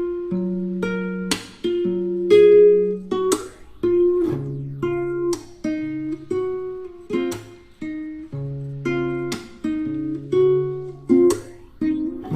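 Background music: a plucked acoustic guitar melody over a steady bass line.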